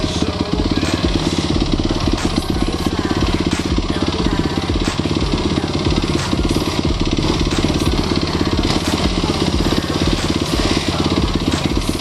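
Dirt bike engine running steadily with small throttle changes, its rapid firing pulses loud and close.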